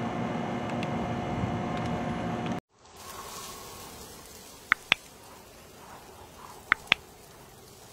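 A steady mechanical drone with a constant hum that cuts off suddenly about two and a half seconds in. A faint, quiet background follows, broken by two pairs of short, sharp high chirps about two seconds apart.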